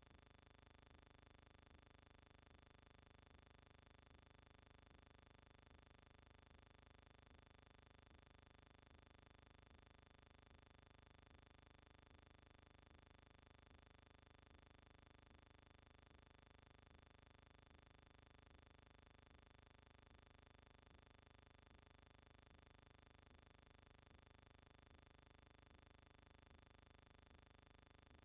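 Near silence: a faint steady hum and hiss, with no sound from the scene.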